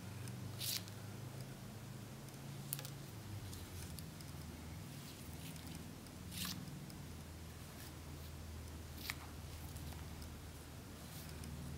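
Quiet handling sounds of hand beading: a few faint, sharp clicks and scratches, about four spread out, as a needle picks up glass seed beads and draws thread through them. A low steady hum runs underneath.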